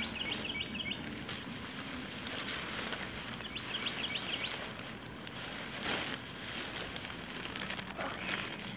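Nylon tent fabric rustling and flapping as it is pulled from its bag and shaken out, with a brief louder swish about six seconds in. Over a steady outdoor hiss, a bird sings a quick run of chirps twice.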